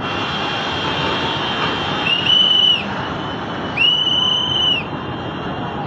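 Steady rushing noise of floodwater, with a high whistle sounding twice, each note held about a second and dropping in pitch as it ends. The whistle notes are the loudest thing.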